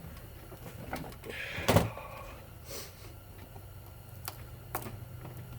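Screwdriver and metal ceiling-fan motor parts clicking and clinking during hand disassembly, with one louder clank and a brief ring about a second and a half in. A steady low hum runs underneath.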